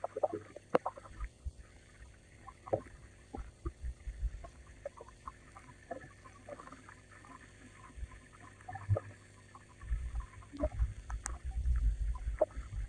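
Water in a garden pond making small irregular splashes and knocks, with low rumbling thuds from about ten seconds in.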